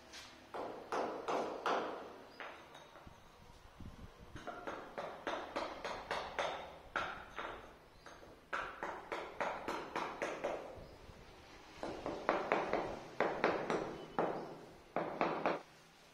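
A hand tool working on a granite slab with quick, short strokes, about three or four a second, in four bursts separated by short pauses.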